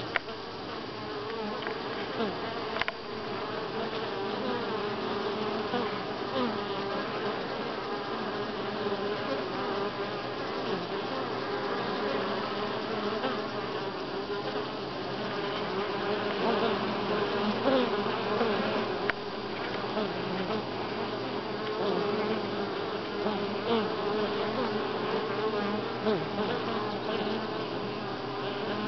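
Many honey bees buzzing close at a wooden hive entrance: a steady, dense hum of wingbeats, with single bees' buzzes rising and falling in pitch as they pass.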